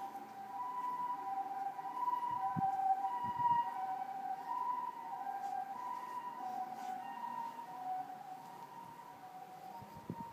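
Two-tone emergency-vehicle siren heard at a distance, alternating between a higher and a lower note roughly once a second, the hi-lo pattern of a Japanese ambulance. A few soft low thumps come through underneath, twice a few seconds in and once near the end.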